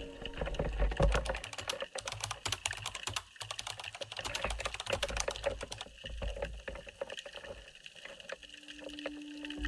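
Rapid keyboard-typing sound effect, a quick run of clacking keystrokes for about six seconds, laid over a low underwater rumble. Soft music comes in near the end.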